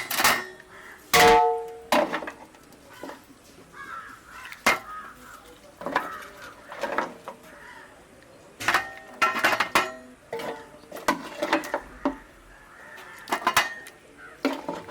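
Metal ladle clanking and scraping against a metal cooking pot as beef trotter curry is served out, with short metallic rings on the sharper knocks.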